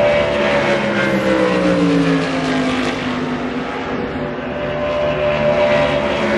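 DPi prototype race car engine at full speed passing by, its note falling in pitch as it goes away over the first few seconds, then a second prototype growing louder as it approaches near the end.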